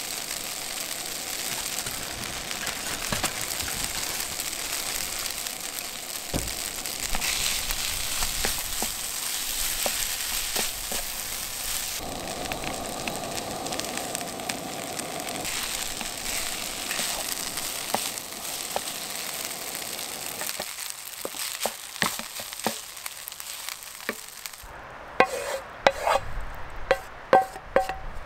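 Turkey fried rice sizzling in a hot frying pan, stirred and scraped with a wooden spatula. About three seconds before the end the sizzling stops and the spatula knocks against the pan again and again, each knock ringing briefly, as the rice is scraped out onto a plate.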